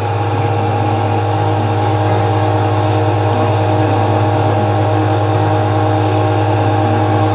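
LUTIAN 1400-watt electric pressure washer running steadily at full power, a loud, even motor-and-pump hum.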